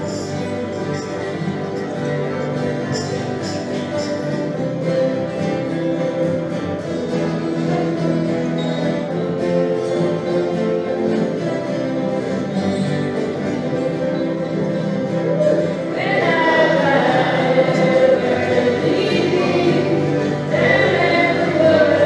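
A folk song circle of acoustic guitars and other string instruments playing together with group singing, the voices growing louder about sixteen seconds in.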